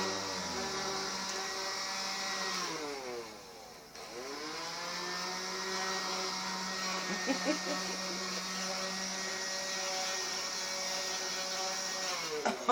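Cordless battery-powered vacuum cleaner motor running with a steady whine, winding down about three seconds in and spinning back up about a second later, then winding down again near the end.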